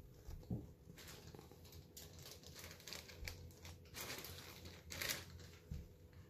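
Faint rustling and crinkling of a paperback picture book held up and shifted in the hands, with a few slightly louder rustles scattered through.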